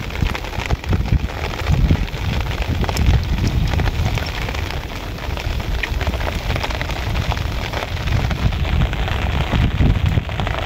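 Heavy rain falling steadily onto shallow floodwater, a dense crackle of drops over a strong low rumble.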